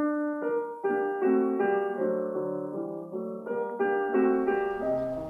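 Piano music: a melody of separate notes, each ringing on under the next.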